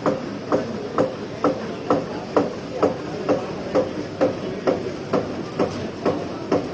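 Label die-cutting machine stamping in a steady rhythm, about two strokes a second, each stroke a short ringing clack, over the steady din of other running machinery.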